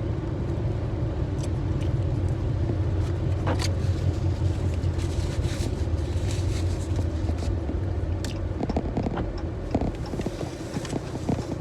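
Steady low rumble of a car cabin with the engine running, with scattered light taps and clicks on top.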